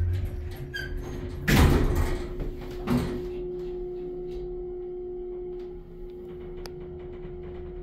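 Dover elevator's doors sliding shut, ending in a thud about three seconds in, after a faint short chime. The elevator then settles into a steady hum as the car runs.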